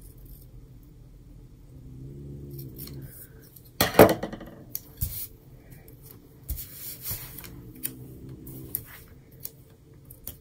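Scissors snipping a paper sticker strip, then a sharp clack about four seconds in as the scissors are set down on the desk, followed by paper rustling and light taps as a sticker is peeled and pressed onto a planner page.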